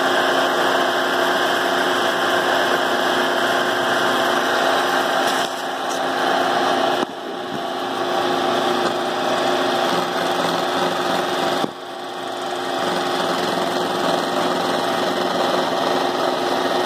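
Power tool with a straight cutter bit running steadily, a high-pitched motor whine as it cuts away the dividing wall of a flooring edger's dust collector housing. The sound drops briefly twice, about 7 and 12 seconds in, as the load on the cutter changes.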